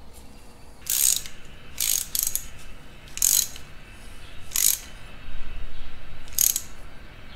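Hand socket ratchet clicking in about five short bursts as it winds threaded pipe plugs into a cast-iron tractor cylinder head.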